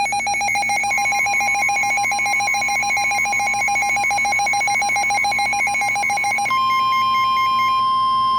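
A weather radio alert alarm beeping rapidly over a steady tone. About six and a half seconds in, the beeping stops and the steady 1050 Hz NOAA Weather Radio warning alarm tone carries on alone, the signal that a warning message is about to be broadcast.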